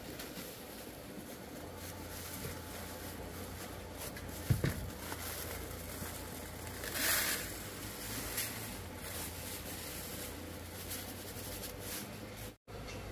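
Quiet background noise with a low steady hum, a soft knock about four and a half seconds in and a brief rustle around seven seconds in; the sound drops out for a moment near the end.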